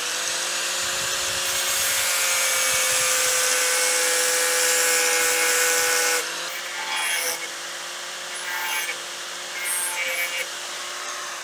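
Electric angle grinder cutting through steel to remove a captive nut that spins loose, its motor whining steadily under a harsh grinding hiss. The cut is heaviest for about six seconds, then eases into lighter, on-and-off cuts.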